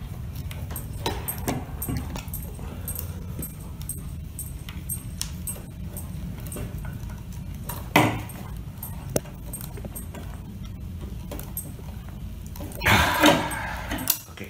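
Light metallic clicks and small rattles as a light fitting's parts are handled and tightened, with a sharper knock about eight seconds in and a short scraping rustle near the end, over a steady low hum.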